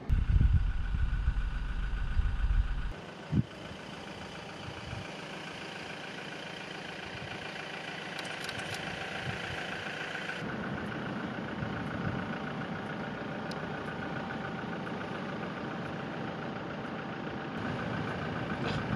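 Car engines idling, heard over several short cuts. A loud low rumble fills the first three seconds and cuts off suddenly.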